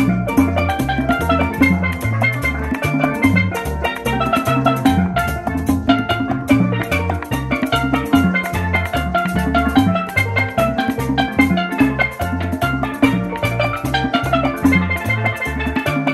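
Instrumental tropical-style Christmas medley: drums and a bouncing bass line keep a steady dance beat under a bright, busy melody.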